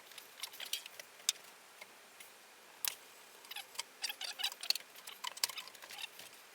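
Irregular small metallic clicks and ticks of a hand tool turning out a large screw on the old bandsaw's frame.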